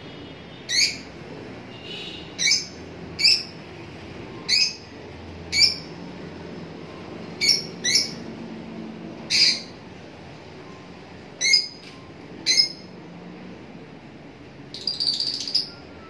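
Lutino rosy-faced lovebirds calling: about eleven short, sharp, high-pitched calls at irregular intervals, then a longer burst of rapid chattering near the end.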